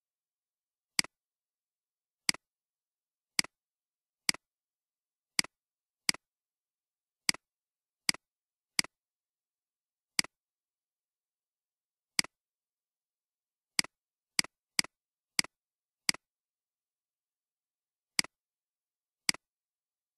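Computer mouse clicking: single sharp clicks at irregular intervals, about eighteen in all, mostly a second or so apart with a quicker run of four near the middle, and silence between them.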